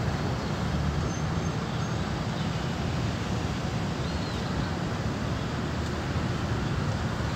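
Steady low rumble with an even hiss: road traffic noise.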